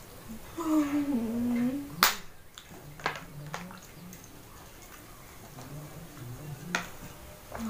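A short wordless vocal sound falling in pitch, then a sharp click and a few lighter clicks and taps as a plastic water bottle is picked up and handled.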